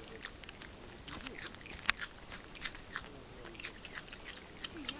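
An indri chewing close to the microphone: irregular crisp clicks and crunches, with one sharper snap about two seconds in.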